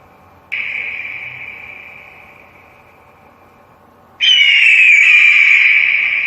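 Eagle cry sound effect: two high, piercing screams about four seconds apart, each starting suddenly and fading slowly in a long echo; the second is louder and slides down in pitch at its start.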